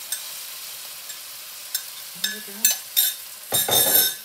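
Minced meat, onion and mushroom filling with stock sizzling in a frying pan while a spoon stirs it, clinking against the pan a few times. A louder burst of stirring noise comes near the end.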